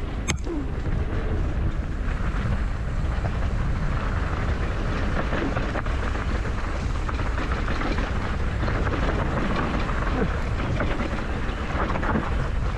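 Mountain bike ridden fast down a dry dirt trail: tyres rolling over dirt and stones and the bike rattling over bumps, with steady wind rumble on the microphone.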